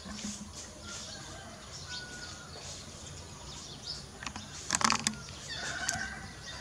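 Outdoor rural ambience: birds chirping and calling in short high notes and whistles, with insects in the background. A louder, brief call stands out just under five seconds in.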